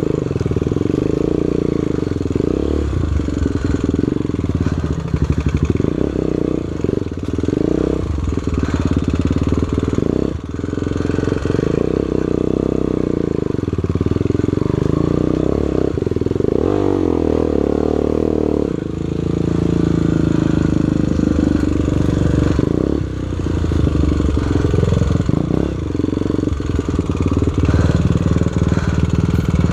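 Single-cylinder four-stroke trail motorcycle engine running hard, its revs rising and falling over and over as the throttle is worked, with brief dips where it is backed off.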